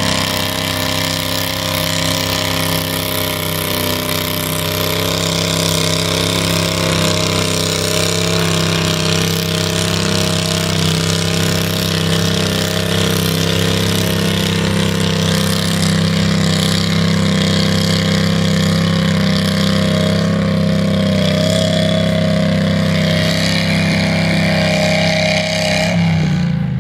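Cub Cadet garden pulling tractor's engine running steadily at high throttle as it drags a weight-transfer pulling sled down the track; right at the end its pitch falls as the throttle comes off.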